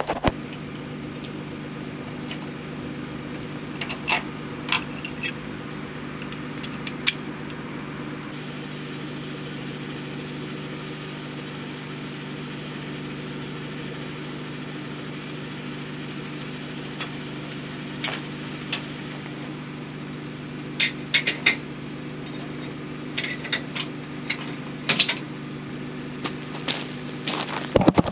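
Travel trailer being hitched to a pickup: scattered sharp metallic clanks and clicks of the hitch and safety chains, most of them in two clusters, over the steady low hum of the idling truck.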